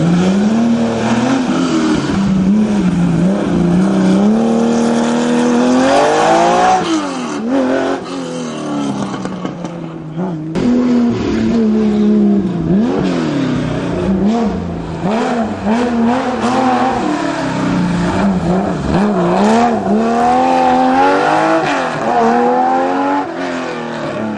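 Historic rally car engine revved hard and pulled through the gears, its pitch climbing and dropping back at each gearchange, with two long high-revving climbs, about a quarter of the way in and again near the end.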